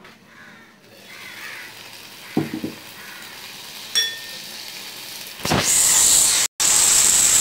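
Tomato chicken curry sizzling and bubbling in a steel pot, growing into a loud steady sizzle about five and a half seconds in. The metal pot lid clatters as it is lifted about two and a half seconds in, and a sharp metal clink rings out at about four seconds.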